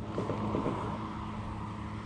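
A motor's steady low hum, with a baitcasting reel being cranked in the first second.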